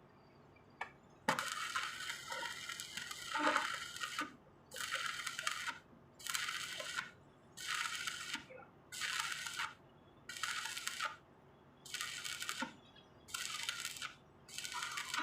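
Welding arc crackling in the horizontal (2G) position: one run of about three seconds, then a steady series of short bursts about a second long with brief breaks between them, the arc being struck and broken again and again in a stitch-like rhythm.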